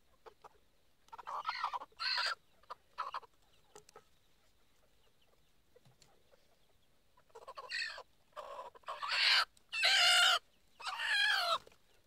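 A chicken squawking and clucking while being held. A few short calls come first, then a run of louder, longer squawks in the second half.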